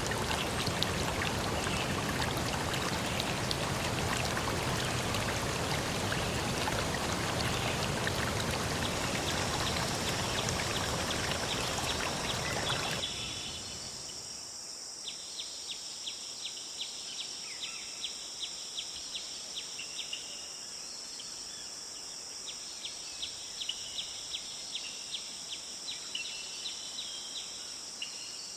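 Steady rush of running stream water that cuts off abruptly about halfway through. A quieter insect chorus follows: crickets keep up a steady high-pitched trill, with quick runs of short chirps laid over it.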